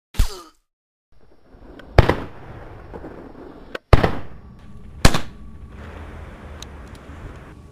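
Four single revolver shots, loud and sharp, spaced about one to two seconds apart, each dying away quickly.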